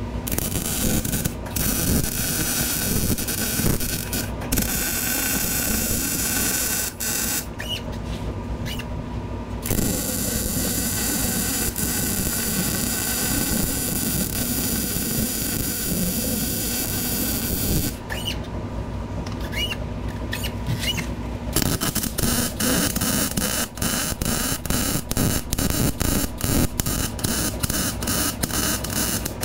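Wire-feed welder arc crackling as it welds steel square tubing, in several long runs with short breaks between beads. Near the end, the arc sputters in quick, sharp pops.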